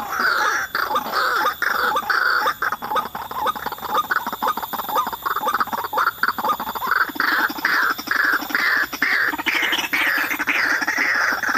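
White-breasted waterhens calling: a continuous run of repeated harsh notes. A lower, pulsing call joins in for a few seconds in the second half.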